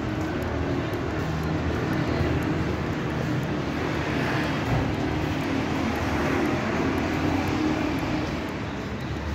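Motor vehicle engine and tyre noise, swelling about halfway through and easing near the end, as of a vehicle running past.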